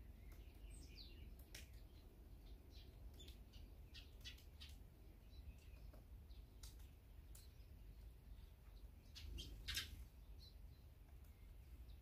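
Faint, scattered chirps and short calls of small songbirds, with a falling call near the start and one louder call about ten seconds in.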